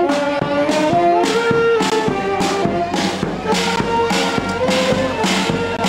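A brass band plays a melody in held notes over a steady beat of about two strokes a second.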